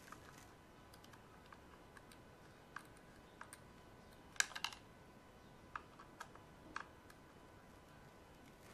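Light clicks and taps of a small screwdriver and screws against the plastic housing of an Electrolux iron being taken apart. The clicks come singly, with a short cluster of louder ones about four and a half seconds in.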